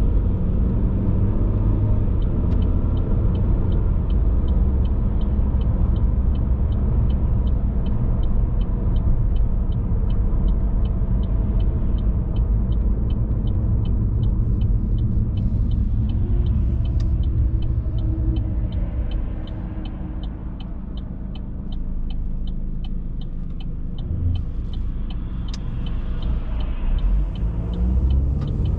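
Car road and engine rumble heard from inside the cabin, with a steady ticking about twice a second over most of it. The rumble eases for a few seconds past the middle, then builds again.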